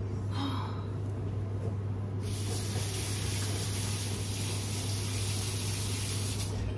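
Kitchen tap running into the sink: a steady rush of water that starts about two seconds in and cuts off shortly before the end, over a steady low hum.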